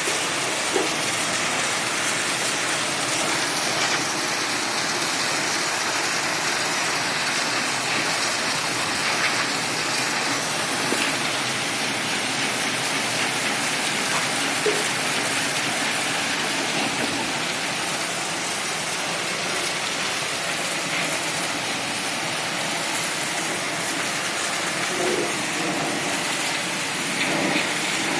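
Steady hiss and splash of a high-pressure cleaning pump's water jet spraying.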